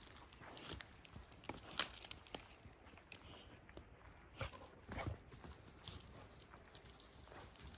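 A dog moving about on a trail: irregular rustling and light clicking, loudest in a brief flurry about two seconds in.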